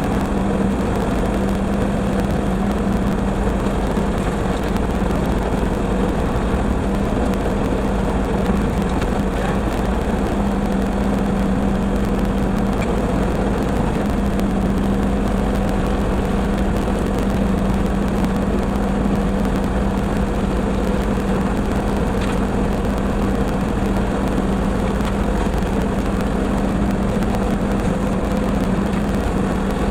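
LS MT240e compact diesel tractor running steadily at working speed while pulling a brush hog, a constant engine drone with a steady hum that holds the same pitch throughout.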